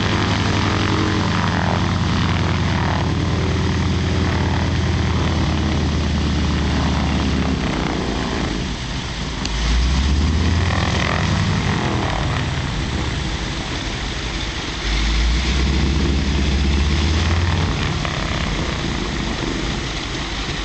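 Light propeller plane's engine running during a landing approach, a steady low drone whose power changes: it dips about eight seconds in, swells briefly, drops back, and swells again before easing off near the end.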